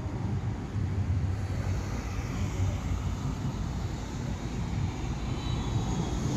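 Siemens Combino Plus light-rail tram approaching and passing close by: a steady low rumble, with a hiss of running noise that builds up as it draws near.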